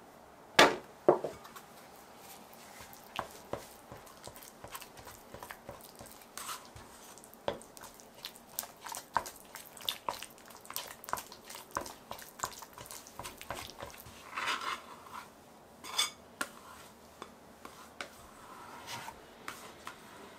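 A plastic bowl scraper working soft, sticky yeast dough and melted butter in a glass bowl, with irregular wet clicks and scrapes against the glass. Two sharp knocks, about half a second apart, come just after the start.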